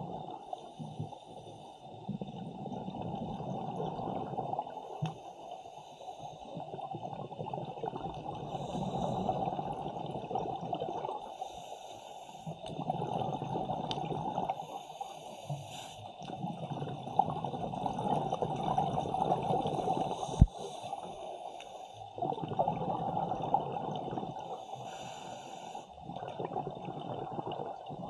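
Scuba diver breathing through a regulator, heard underwater: a short hiss on each inhale, then a long burble of exhaled bubbles, repeating every three to five seconds. A single sharp knock about twenty seconds in.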